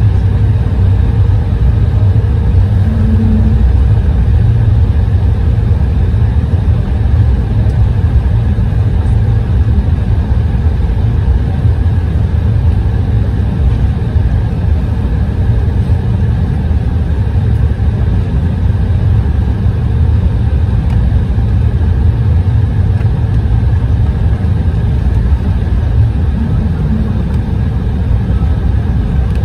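Steady, loud cabin noise of a jet airliner rolling along the runway after landing: the low rumble of its engines and wheels on the concrete, with a faint steady hum above it.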